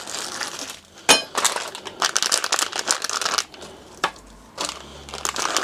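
Plastic packaging bags crinkling and rustling as hands rummage through small bagged parts in a cardboard box, with a sharp click about a second in.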